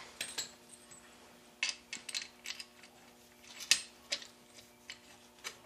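Bolts, washers and metal shafts clinking and tapping as they are handled and fitted into a snowmobile rear skid rail: scattered sharp clicks, the loudest about two-thirds of the way through, over a faint steady hum.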